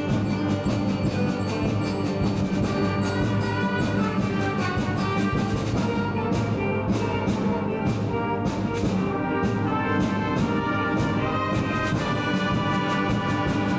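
High school concert band playing a piece with full ensemble, brass prominent over a steady sustained texture.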